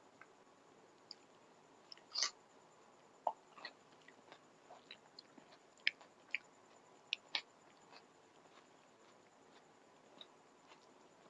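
Person eating a rice meal close to the microphone: quiet chewing with scattered short, sharp mouth clicks and smacks, a few of them louder, about two seconds in and again around six to seven seconds.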